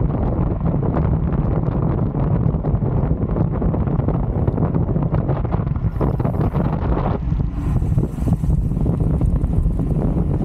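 Wind buffeting the microphone of a 360 camera riding along in a bicycle race at speed: a steady, heavy low rushing with no break.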